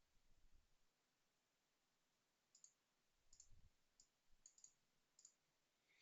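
Near silence, with a scattered handful of very faint computer mouse clicks from about halfway through.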